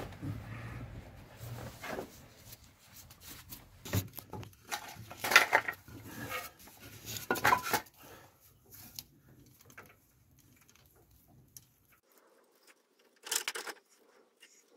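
Metal hand tool clinking and scraping against a brake caliper as its sliding pins are done up. The clatter comes in short bursts, busiest in the middle with the loudest clink about five seconds in, then a quiet stretch and one more short rattle near the end.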